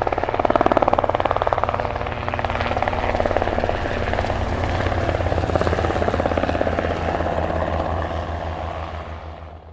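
Helicopter with a fast, steady beat of rotor blades, fading away near the end.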